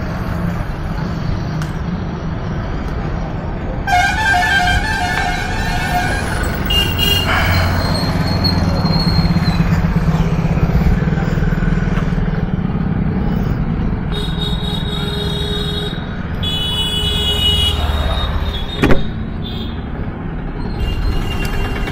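Vehicle horns honking over a steady low engine rumble of traffic: one pulsing honk about four seconds in, and more honks in the second half. A single sharp knock near the end.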